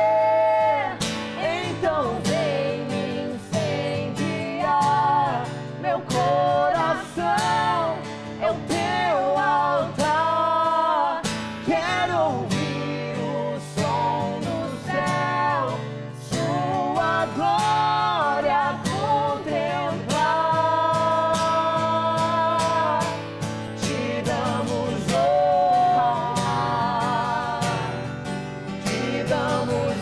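Acoustic guitar strummed as accompaniment to a man and a woman singing a slow Portuguese gospel worship song, with long held notes.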